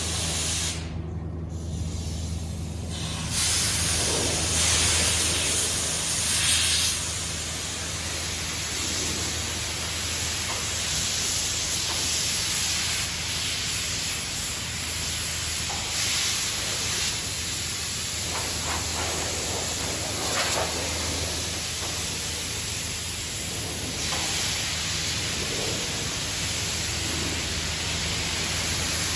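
Steady hiss of a hand-held hose lance spraying steel parts as they are hoisted out of a hot-dip galvanizing bath, over a low steady machinery hum.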